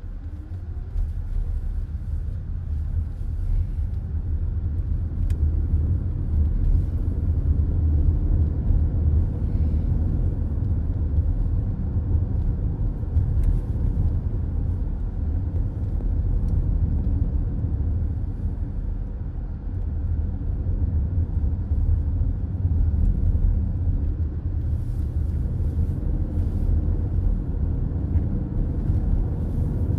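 Steady low rumble of a car driving at highway speed, heard from inside the cabin: tyre and engine noise. It builds a little over the first few seconds.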